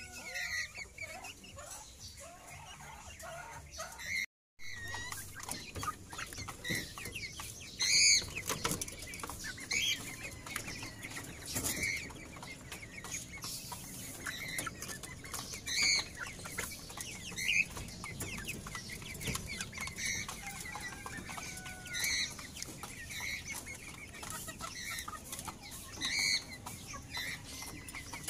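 Caged Silkie chickens giving short, high calls, one every couple of seconds, with some rustling and scratching on the wire floor.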